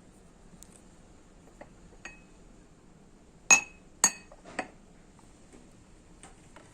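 Tableware clinking: a few faint clinks, then three sharp ringing clinks about half a second apart midway, as dishes or utensils are handled.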